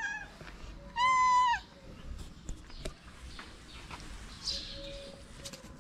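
A cat meowing twice: a short meow right at the start and a louder one about a second in.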